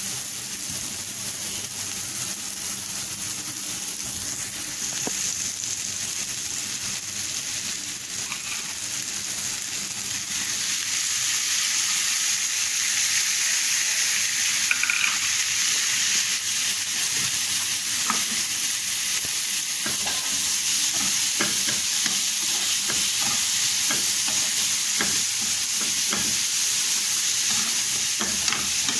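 Chopped onion sizzling in a frying pan. About ten seconds in, chopped tomatoes go into the pan and the sizzle grows louder. Later a spoon stirs the mix, with small clicks and scrapes against the pan.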